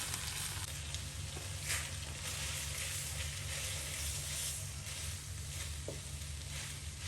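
Food sizzling in a frying pan, with a few short clicks of stirring; the loudest click comes about two seconds in.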